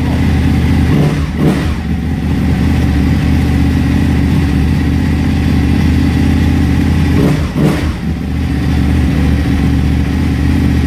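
Ducati 899 Panigale's L-twin engine idling steadily, with two short throttle blips: one about a second and a half in and another at about seven and a half seconds.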